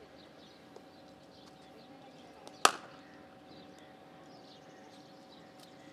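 A single sharp crack of a cricket bat striking the ball, about two and a half seconds in, with a short ringing tail. Faint bird chirps and a steady low hum run underneath.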